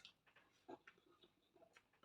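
Faint chewing with soft, irregular mouth clicks and smacks, several a second.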